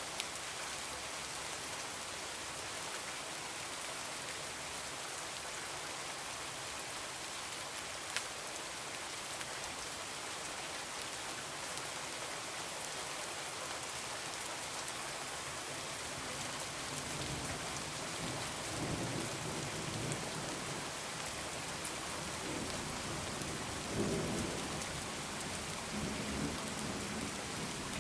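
Heavy rain falling in a steady hiss, with distant thunder rumbling in from about halfway and swelling loudest a few seconds before the end. A few isolated sharp clicks stand out over the rain.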